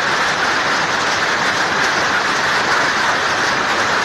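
Loud, steady roar of a violent storm: a wind-driven downpour pounding the ground and stalls.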